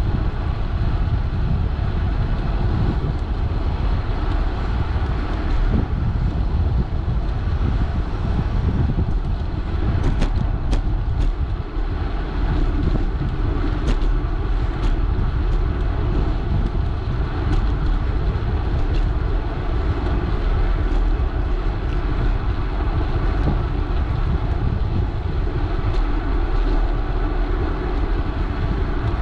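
Riding a bicycle on asphalt, heard from a camera on the bike: a steady rumble of wind on the microphone and tyres on the road, with a few short sharp clicks between about ten and fifteen seconds in.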